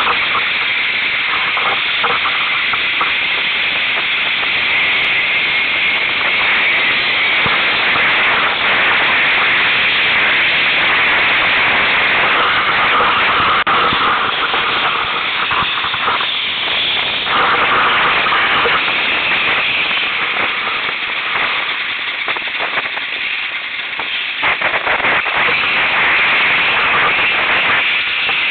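Steady, loud rushing hiss of a snowmobile ride: wind and snow noise on the moving sled, with the machine's engine buried in the roar.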